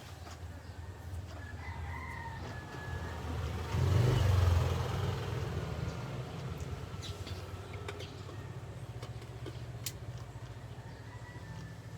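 A rooster crowing in the background over a steady low motor hum, which swells loudest about four seconds in, like a passing vehicle.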